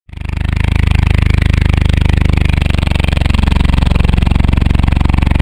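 Truck engine sound effect: a large engine running steadily with a low rumble and a fast, even pulsing.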